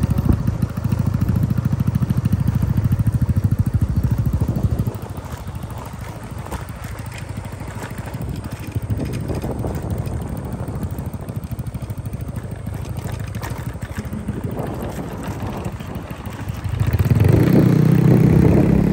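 Motorcycle engine running while riding, louder for the first few seconds, easing off through the middle and picking up again near the end.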